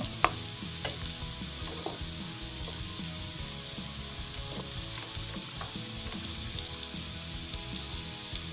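Dried salted beef (cecina) frying in hot oil in a frying pan: a steady sizzle with scattered sharp crackling ticks, the strongest just after the start.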